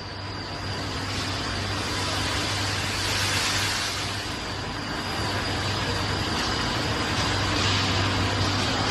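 Continuous mesh belt carbonitriding furnace line running: a steady low hum under an even hiss, with a thin, constant high-pitched whine.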